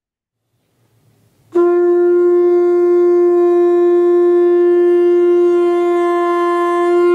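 A single long note blown on a horn-like wind instrument. It starts abruptly about a second and a half in and is held loud and steady at one pitch.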